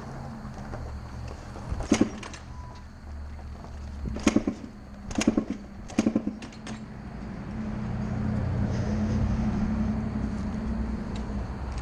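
Dirt bike being kick-started without catching: sharp clacks of the kick lever with short sputters from the engine turning over, once about two seconds in and then a run of kicks between about four and six and a half seconds. The rider takes the failure to start for a fouled spark plug. A steady low vehicle rumble swells in the second half.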